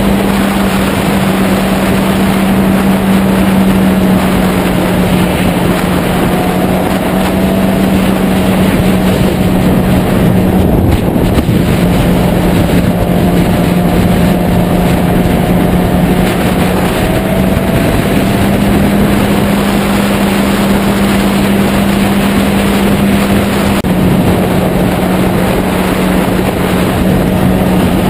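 Heavy wind buffeting on a tank-mounted camera microphone at road speed, with the steady hum of a Yamaha YZF-R6's inline-four engine underneath that shifts slightly in pitch a few times.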